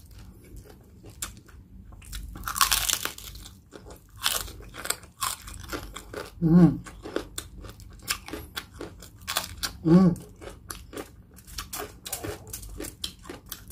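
Crunching and chewing of crispy pata skin (deep-fried pork leg crackling): many sharp crunches, with one bigger crunchy bite about two and a half seconds in. Two short voice sounds from the eater near the middle.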